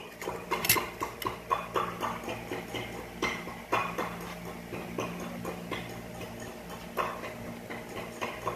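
Irregular light clicks and taps of kitchen utensils and containers being handled, over a steady low hum.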